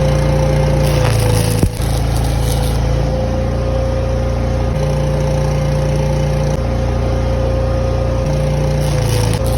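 Engine running steadily with a steady whine, its low note shifting slightly several times, with a brief knock about one and a half seconds in.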